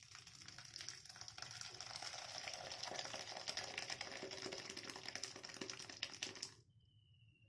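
Split milk, whey carrying soft chhena curds, poured from a pan into a cloth-lined strainer: a steady splashing stream that stops about six and a half seconds in.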